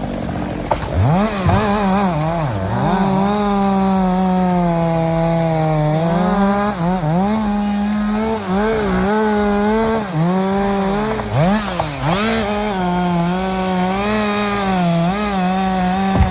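Chainsaw cutting wood at full throttle. Its high engine pitch drops sharply each time the chain bogs down in the cut, then climbs back, again and again.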